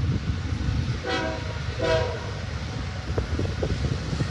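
Diesel locomotive air horn on an approaching BNSF stack train sounding two short blasts close together about a second in, each a chord of several tones, over a steady low rumble.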